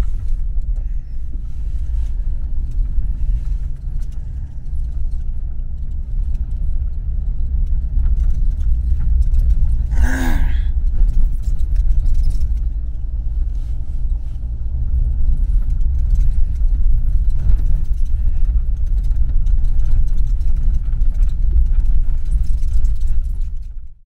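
Steady engine and road rumble inside a moving vehicle's cabin, with a brief clatter about ten seconds in. The sound cuts off abruptly at the end.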